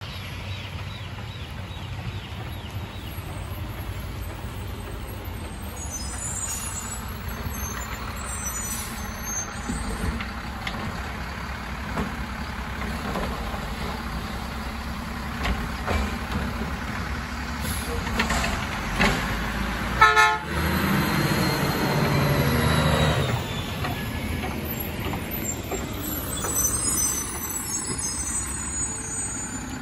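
Mack LR garbage truck engine running while its Labrie automated side-loader arm lifts and dumps a trash cart, with knocks and clanks from the arm and cart. About two-thirds through there is a sharp, loud burst, then the engine revs up as the truck pulls away.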